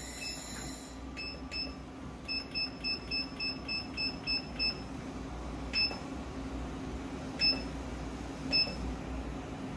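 Control-panel keypad of a LightWIRE dual wire feeder beeping as its buttons are pressed to raise the wire feed speed: two beeps, then a quick run of about nine at roughly four a second, then three single beeps spaced apart.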